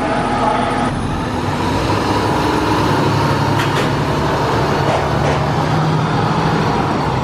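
Diesel engine of a fire department water tender running as the truck pulls away, its engine note climbing gently.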